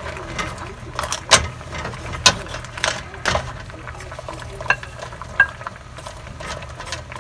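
Wooden spatula and a plate knocking and scraping against a stainless steel pot as green beans are pushed off into it: about half a dozen sharp clicks and knocks over a low steady hum.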